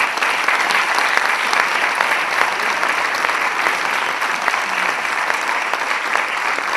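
Live audience applauding at the end of a spoken reading, many hands clapping together at an even level.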